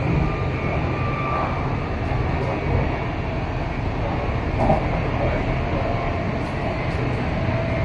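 MTR East Rail Line electric train running, heard aboard: a steady rumble of wheels on track with faint whining tones. A single short knock comes about four and a half seconds in.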